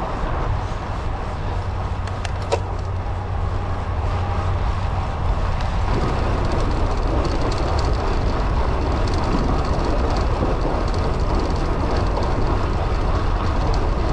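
Steady low rumble with rushing wind noise on the microphone, as of moving along; it grows a little louder about six seconds in.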